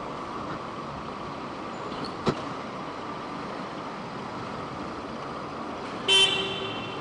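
Steady riding and traffic noise from a motorcycle in city traffic, with a sharp click a little over two seconds in. Near the end a vehicle horn honks once, briefly and loudly.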